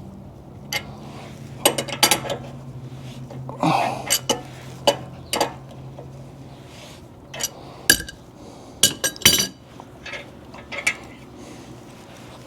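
Metal hand tools (wrenches and sockets) clinking and knocking against steel steering parts in a dozen or so irregular sharp clinks, several close together past the middle. A low steady hum runs underneath and fades out about halfway.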